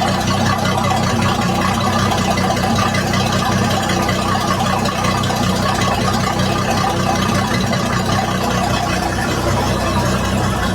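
MerCruiser 4.5 L 250 hp V6 sterndrive engine idling steadily.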